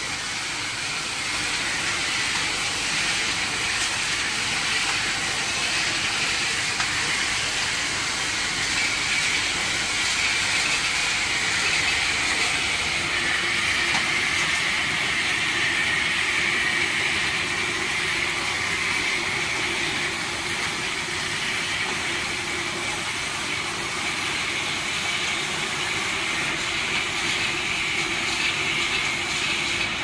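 Rotary bottle-filling machine running, giving a steady hissing, whirring mechanical noise as water bottles are filled.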